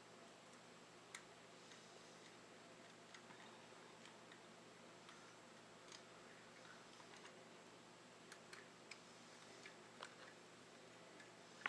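Faint, irregular small clicks and ticks of a screwdriver and metal screws being worked into a laptop hard drive's side mounting holes, over near silence.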